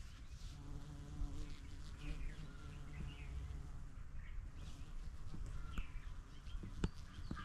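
A buzzing insect flies near the microphone, with short bird chirps scattered throughout over a steady low rumble. There are two sharp clicks near the end.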